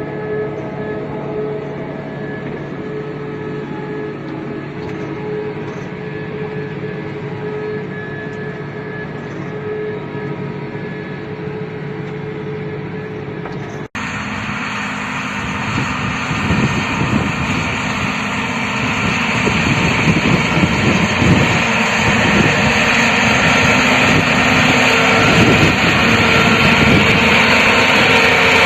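Claas Tucano 320 combine harvester running with a steady hum. About halfway through there is a sudden cut to a louder, hissier stretch of the machine working that grows a little louder toward the end.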